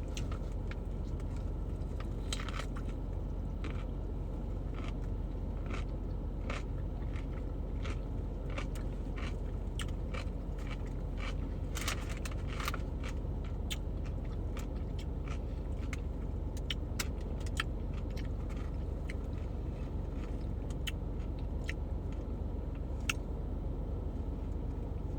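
A person chewing bites of a pickle sandwich, with frequent short crunchy clicks and wet smacks over a steady low hum.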